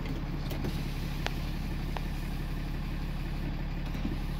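The 6.7-litre Cummins inline-six turbo diesel of a 2018 Ram 2500 idling steadily, heard from inside the cab.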